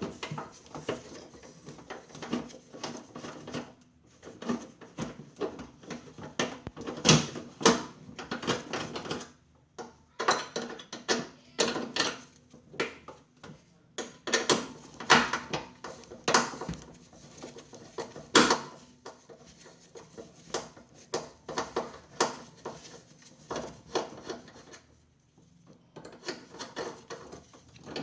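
Hands and tools working on microwave oven parts: irregular clicks, knocks and scraping of hard parts being handled, with short pauses, the quietest around ten seconds and twenty-five seconds in.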